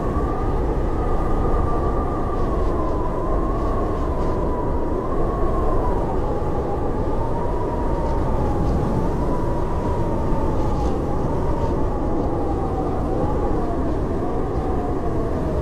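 Howling blizzard wind: a steady, deep rush of wind with a whistling howl over it that wavers up and down in pitch and drifts slowly lower.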